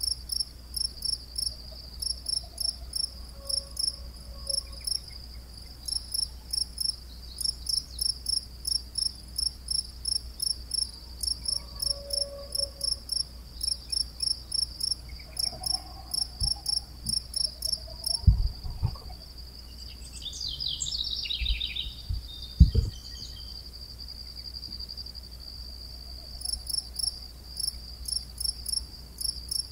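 Crickets chirping in even pulses about three a second over a steady high trill. The pulses stop for several seconds in the middle, while a brief higher chirping call and two low thumps sound.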